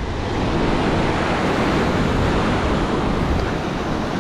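Rough ocean surf: waves breaking and washing up the beach in a steady rush of noise.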